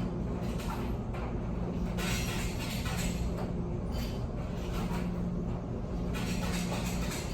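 Steady low rumble and hum, with two stretches of louder hissing noise, one about two seconds in and one near the end.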